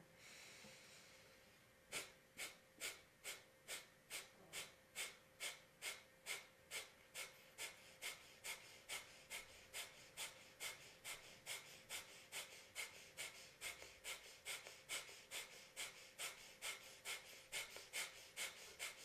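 Breath of fire, a rapid yogic breathing exercise. A soft inhale is followed, about two seconds in, by short, forceful exhaled puffs at an even pace of about two a second, which stop just before the end.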